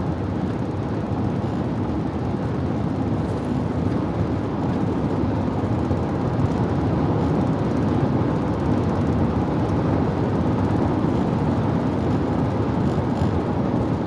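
Steady road and engine noise of a car cruising at highway speed, heard from inside the cabin.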